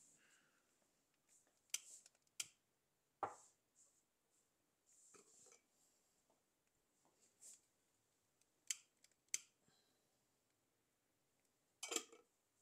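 Wood fire in a fireplace crackling quietly, with sharp pops at irregular intervals over near silence.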